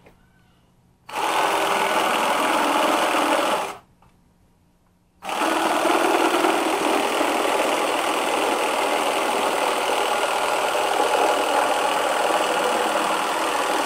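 Cordless drill driving a jigsaw adapter, its reciprocating blade sawing through a board of dry, hard mahogany. The saw runs for about two and a half seconds, stops, then starts again a second and a half later and runs steadily to the end.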